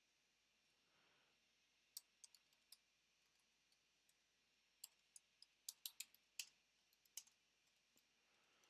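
Faint keystrokes on a computer keyboard as code is typed: a few scattered taps about two seconds in, then a quicker run of them between about five and seven seconds.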